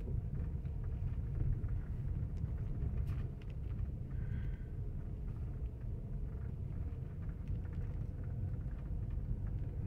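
Steady low rumble of a car driving slowly over a dirt track, heard from inside the cabin.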